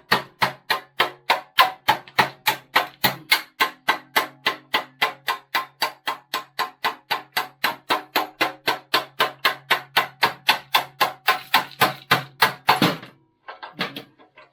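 Hammer blows on a metal drift driving a part out of the Honda CT90 K0, struck in a fast, steady rhythm of about three to four a second. The blows stop about 13 seconds in, followed by a couple of faint knocks.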